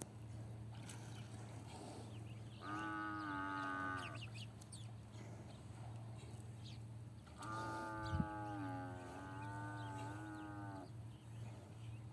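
Cattle mooing twice: a short call about three seconds in and a longer one of about three seconds from the middle on, each slightly falling in pitch, over a steady low hum.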